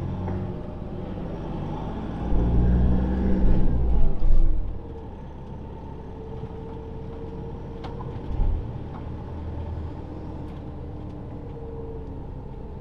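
Motorhome engine and road noise heard from inside the cab while driving slowly, a steady low rumble that is louder from about two to four and a half seconds in, then settles quieter.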